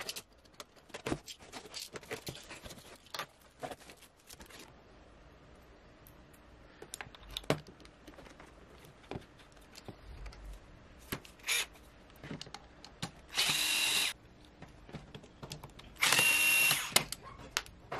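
Small electric screwdriver whirring in two short runs of under a second each, near the end, driving screws into the corner of a metal picture frame. Before that come many light clicks and knocks as the box is handled and a bit is picked from the bit holder.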